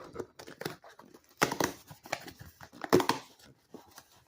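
A mailer package being torn open and its packaging crinkled by hand: irregular rips and rustles, loudest about a second and a half in and again about three seconds in.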